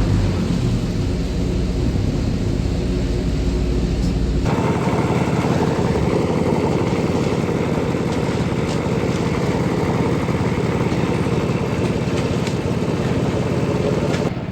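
Engine of the machinery on a concreting job running steadily. About four seconds in it changes abruptly from a deep rumble to a harder, higher, fast-pulsing engine note.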